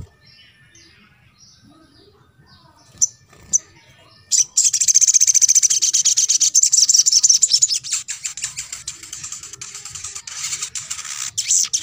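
Sogon (sogok ontong) songbird singing: a few faint high chirps and two sharp clicks, then about four seconds in a loud, fast, high-pitched twittering song that runs on and thins out near the end.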